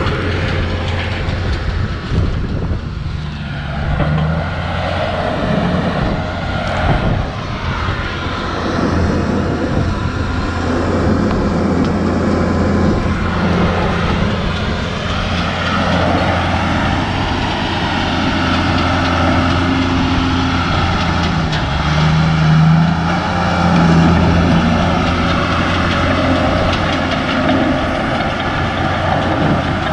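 Diesel engine of a heavy earthmoving machine running, its revs rising and falling several times as it works.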